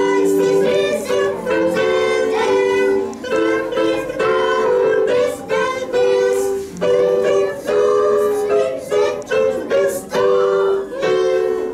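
A song played on a digital piano, with a group of young children singing along.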